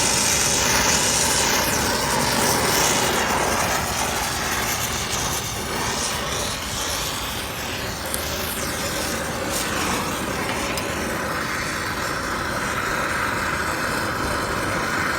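Oxy-acetylene torch flame hissing steadily as it heats a copper line joint for silver brazing a new expansion valve.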